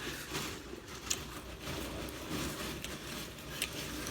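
A person chewing food with the mouth close to the microphone, with a couple of faint crunches.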